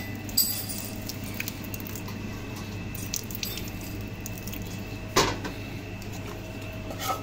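Wet paneer curds in a cotton cloth being handled and gathered over a colander, with small clicks and one sharp knock about five seconds in, over a steady low hum.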